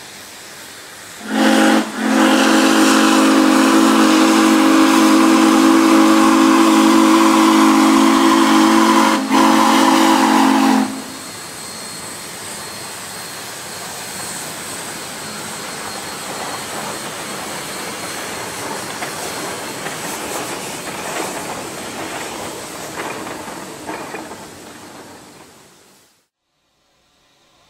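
Steam whistles of Shay geared steam locomotives sounding one long, loud chord with a brief break near the start, cutting off about eleven seconds in. Then a steady hiss of steam from the working locomotives, fading out near the end.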